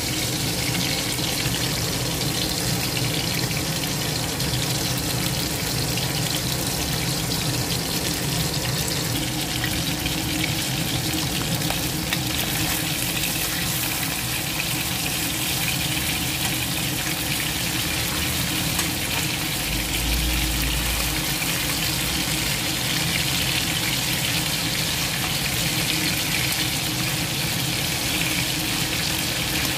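Pieces of stingray sizzling steadily as they fry in hot oil in a pan.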